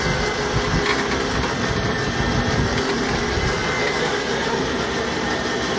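A vehicle engine running steadily close by, a continuous rumble with a faint steady hum over it.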